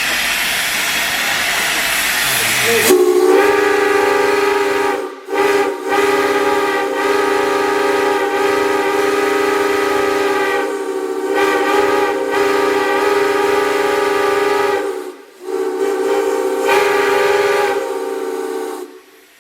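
Steam hissing, then about three seconds in a B&O railroad steam whistle starts sounding several notes at once in a long, steady blast. It breaks off briefly a few times and cuts off near the end.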